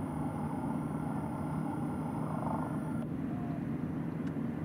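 Motorboat engine running steadily: a low, even drone with no change in speed. A thin high hiss above it drops away about three seconds in.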